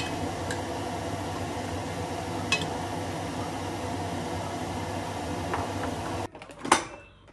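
A steady mechanical hum with a few light clinks, which stops abruptly near the end, followed by one sharp, loud clink.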